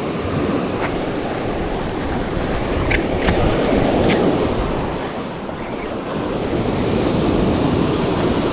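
Small surf breaking and washing up a sand beach, swelling louder about four seconds in and again near the end, with wind buffeting the microphone.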